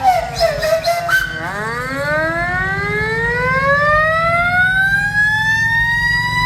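Steam whistles blowing together. A warbling whistle falls away in the first second, then one whistle starts low and glides steadily upward, siren-like, to a high held note near the end, over a steady low rumble.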